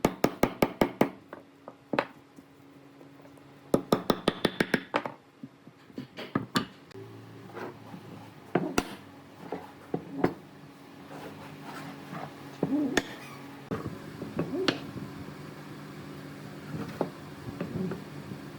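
Hammering on wood: quick runs of sharp blows, about five or six a second, in the first second and again around four seconds in, followed by scattered single knocks.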